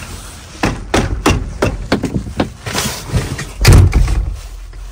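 A run of knocks and bumps as someone climbs up into a Volvo truck cab and settles in the driver's seat, with one heavy thud a little before four seconds in.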